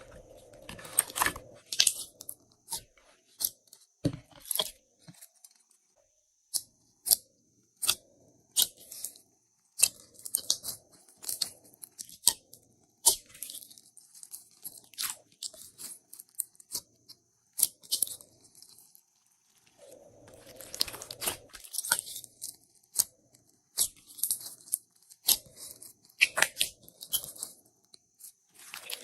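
Glossy slime being squeezed, pressed and stretched by hand, giving irregular sticky pops and clicks with short stretches of dense crackling.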